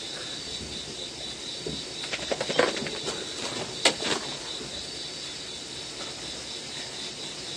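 Insects chirring steadily in a high, even drone, with a few soft rustles about two seconds in and one sharp click near the four-second mark.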